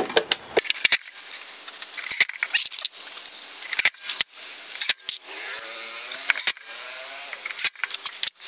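A DeWalt cordless drill driving screws into plywood, its motor whirring in short runs and rising in pitch as it spins up, between sharp clicks and rattles of screws being picked from a plastic box.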